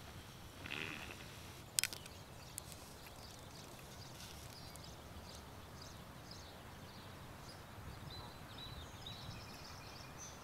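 Faint outdoor ambience: a steady low rumble with small birds chirping faintly and intermittently in the background. A brief rustle comes about a second in and a single sharp click just before two seconds.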